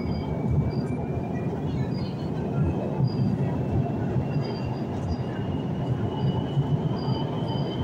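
İzmir Metro train running, heard from inside the carriage: a steady rumble of wheels on rails, with a faint whine that rises slowly in pitch.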